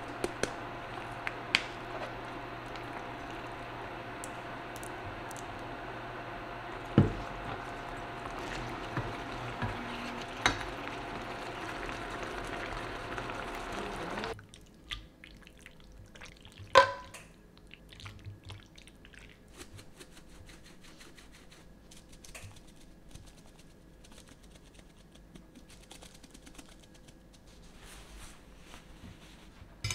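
Spicy sauce with glass noodles simmering in a frying pan on an induction cooktop: a steady bubbling hiss with a faint hum and a few light clicks. It cuts off abruptly about halfway through, giving way to quieter scattered clicks and one sharp knock.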